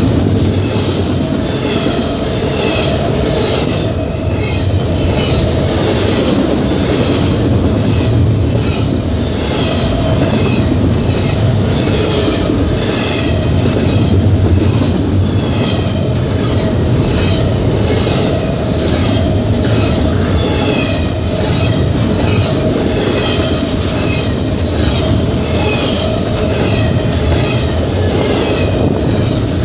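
Double-stack intermodal container freight train rolling steadily past on the adjacent track: a continuous rumble of the cars with a regular clickety-clack of wheels over the rail joints.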